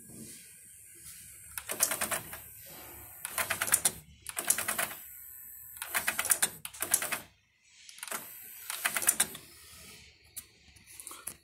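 Nakamichi RX-300 cassette deck's transport and loading mechanism chattering in about five bursts of rapid clicking, each under a second long, in a deck that needs repair.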